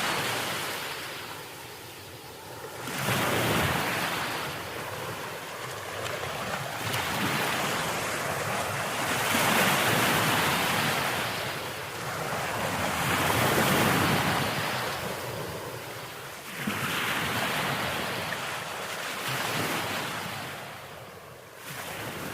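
Ocean waves breaking on the shore, the surf swelling and ebbing in surges every few seconds, with some wind noise on the microphone.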